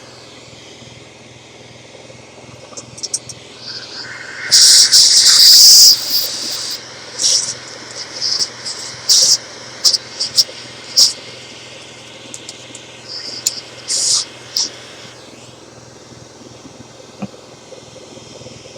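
Short blasts of compressed air hissing over a steady machine hum, while the radio chassis is blown clean of metal filings and dirt. The longest and loudest blast comes about four to six seconds in, and many brief puffs follow.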